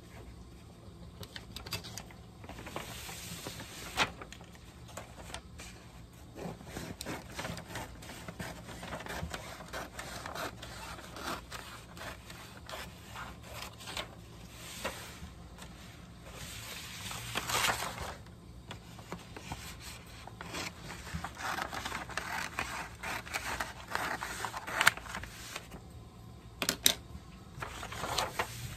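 Paper and chipboard sliding and rustling on a tabletop, with scissors cutting a large sheet of decorative cover paper. Scattered sharp clicks and taps, the loudest about four seconds in and near the end.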